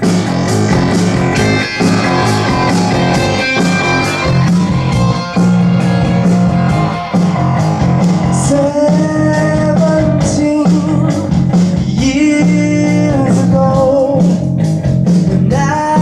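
Rock band playing a song live: electric guitar, keyboard and drum kit with a steady beat. A bending melody line comes in about halfway through.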